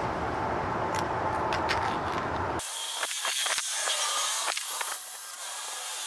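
Steady outdoor hiss and rumble, changing abruptly about two and a half seconds in to a thinner, higher hiss. A few light clicks and taps come through it as a plastic doorbell mounting plate is handled and held against the wall.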